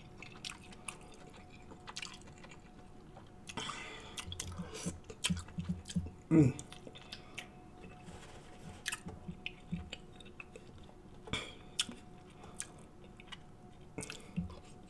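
Close-miked eating sounds: wet chewing, lip smacks and squishes of sauce-covered seafood boil being eaten by hand, with one louder short sound about six seconds in.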